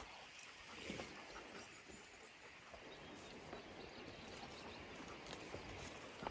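Faint footsteps on a dirt path over quiet outdoor background noise, with scattered soft ticks and rustles.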